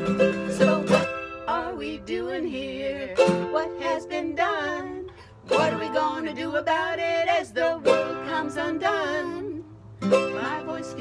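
Women singing a folk song together, with a small strummed string instrument and a nylon-string acoustic guitar accompanying them. The singing breaks off briefly twice, about halfway through and near the end.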